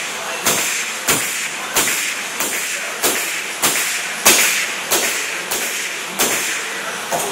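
Pneumatic nailer firing into plywood sheathing over a wooden panel frame. About a dozen sharp shots come at a steady pace of roughly one every two-thirds of a second, each with a short hiss of air, and one is louder a little past the middle.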